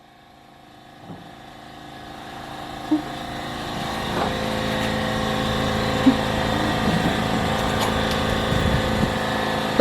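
A steady engine-like hum with several held tones, growing louder over the first four seconds and then holding, with a few faint knocks.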